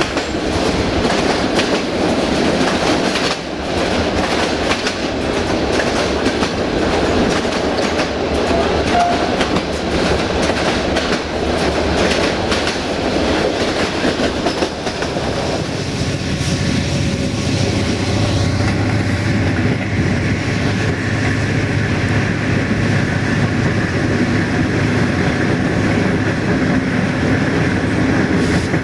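Passenger carriage running over jointed track, its bogie wheels clicking over the rail joints with a steady rattle. About halfway through the rattle eases and a steady low hum comes to the fore.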